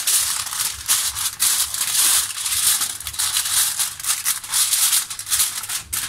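Aluminium foil crinkling as it is stretched over a baking dish and crimped down around the rim by hand: a dense, continuous run of crackles.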